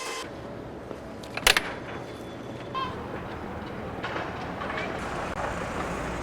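City street sound of steady vehicle and traffic noise, with one sharp knock about a second and a half in.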